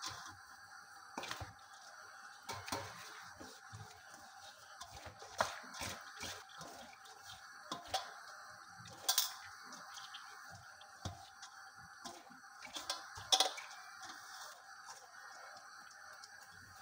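Hands rubbing oiled couscous grains between the palms in a stainless steel bowl: a soft, grainy rustle with a few sharper clicks and scrapes against the bowl, as the clumped grains are broken apart before steaming.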